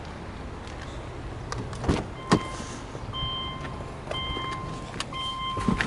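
Car door latch clicking open twice, then the car's electronic warning chime beeping repeatedly, about one beep a second.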